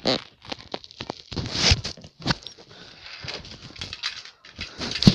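Irregular taps, knocks and rustling handling noise, with a sharper knock at the very end.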